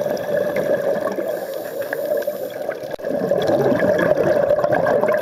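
Underwater noise heard through a camera housing: a steady muffled rushing, joined about three seconds in by louder bubbling from a scuba diver's exhaled breath through the regulator.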